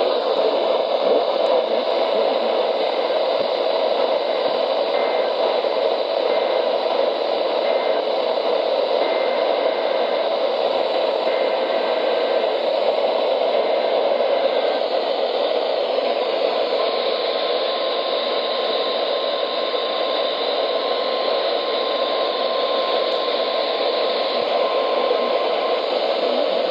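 Weather radio receiver hissing with steady static and no broadcast coming through. Faint short beeps are heard in the first half, and a faint steady whistle in the second half.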